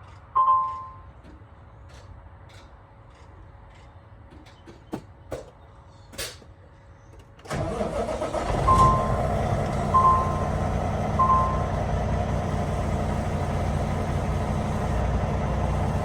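A single electronic beep and a few clicks, then a semi truck's diesel engine starts about halfway through and settles into a steady run, with three more short beeps spaced a little over a second apart.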